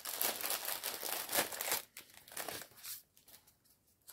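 Cross-stitch kit packaging crinkling as it is handled, dense for about two seconds, then a few short rustles before it goes quiet near the end.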